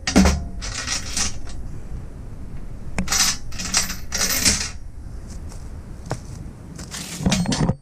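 A cordless impact wrench runs in a brief hammering burst at the start while it drives a bolt. Then come several short bursts of rapid metallic clicking and clinking from a hand wrench on the bolts.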